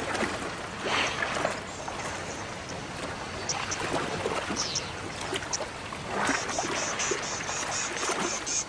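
River water splashing and sloshing as hippopotamuses move and tug at a carcass in the shallows. A quick run of short, high chirps comes near the end.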